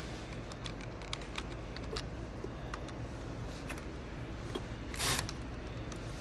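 Screwdriver driving in the two screws that hold a water inlet solenoid valve: scattered small clicks and scrapes, with a short louder rasp about five seconds in.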